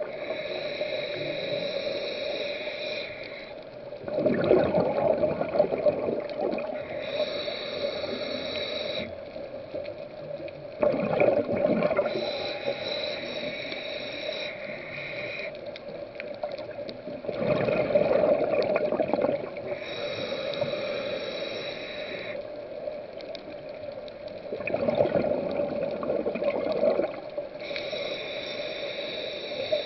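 Scuba diver breathing through a regulator, heard underwater: a hissing inhale of two to three seconds, then a louder bubbling exhale, repeating about every seven seconds, four full breaths in all. A steady hum runs underneath.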